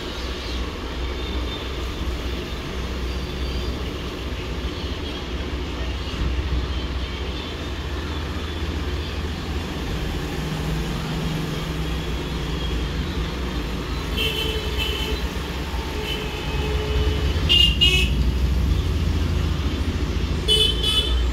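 Road traffic rumbling steadily, with vehicle horns honking briefly a few times in the second half.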